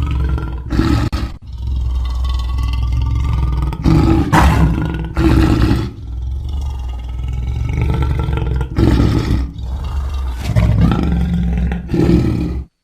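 African lion roaring: a long run of deep roars and grunts, with louder bursts every second or two, cutting off suddenly near the end.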